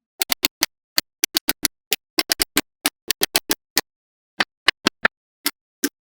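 Small magnetic balls clicking sharply as they snap together, about two dozen clicks at an uneven pace with a short pause a little past the middle.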